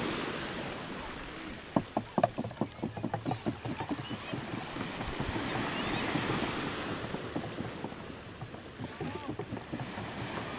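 Small waves washing in the shallows, with a quick run of sharp slaps starting about two seconds in and thinning out over about three seconds.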